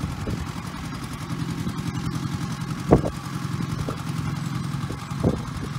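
Small compact tractor's engine running steadily as it tows a steel arena harrow, with two sharp knocks, about three seconds in and again near the end.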